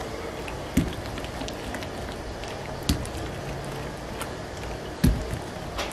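A hand smearing beaten egg over rounds of bakarkhani dough on a wooden board. A dull thud comes about every two seconds, three times, over a steady background hiss.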